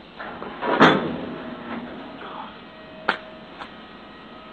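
A man doing burpee jumping jacks on concrete: a loud burst about a second in, then a few sharp slaps. A faint steady hum comes in partway through.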